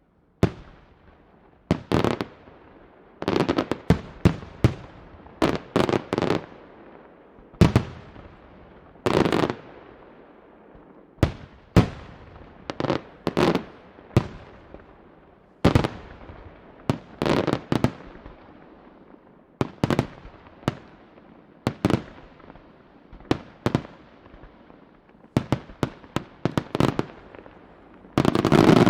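Aerial fireworks display: shell bursts going off one after another, singly and in quick clusters every second or two, each bang trailing off in an echo. A dense volley of bursts comes near the end.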